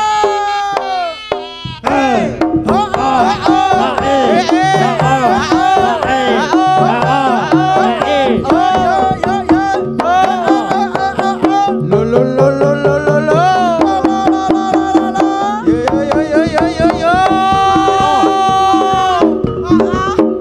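Live Javanese jaranan gamelan music: hand drums beat a steady rhythm under gongs and a wavering melodic line. The music dips briefly about a second and a half in, then comes back loud.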